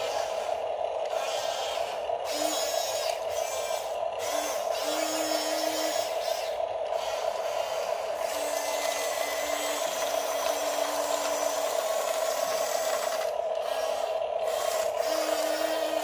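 Electric gear motors of a Huina 1569 RC bulldozer whining steadily as it drives its tracks and blade, with a lower motor hum cutting in and out several times. Gritty scraping of sand and pebbles under the blade and tracks runs underneath.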